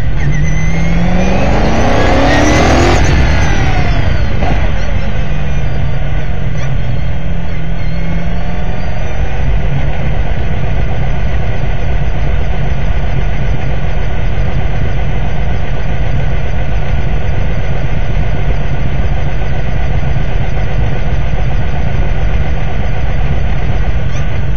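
Onboard sound of an S5000 open-wheeler's 5.0-litre Ford V8, loud and close. The engine rises sharply in pitch about two seconds in, then runs steadily at low revs as the car rolls slowly in first gear, over a low rumble.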